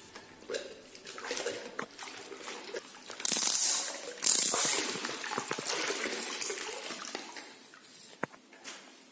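Wet string mop sloshing in a bucket of water, then lifted out with water streaming off it back into the bucket in two louder rushes about three and four seconds in, fading to a trickle.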